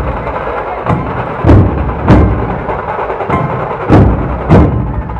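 Dhol-tasha ensemble playing: many large dhol drums strike heavy beats together in pairs about half a second apart, the pattern coming round every two and a half seconds or so. Under the beats runs a constant rapid clatter of tasha drums.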